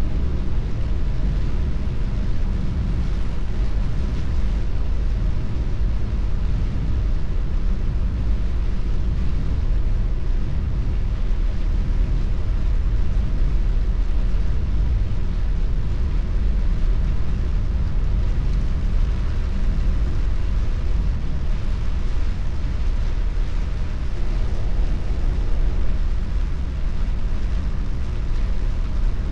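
Car cabin noise while driving on wet roads: a steady low rumble of road and engine noise with a softer hiss of rain and tyre spray over it.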